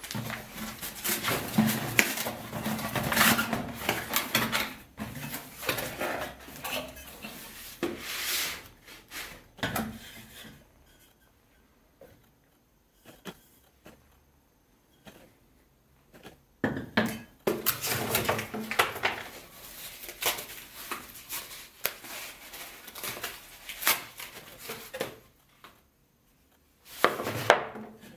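Unpacking an IKEA Världsligt plant pot: cardboard box and packing rustling and scraping in irregular bursts, with small knocks and clicks as the clear glass bowl is handled. It goes quieter for several seconds about a third of the way in, then the rustling and handling pick up again.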